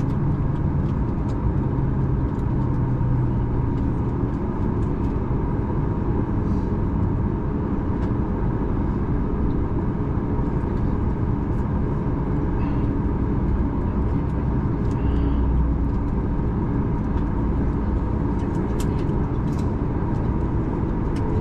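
Steady cabin noise inside a Boeing 737 MAX 9 taxiing after landing: its CFM LEAP-1B engines run at taxi idle under a low rumble, with a faint steady whine.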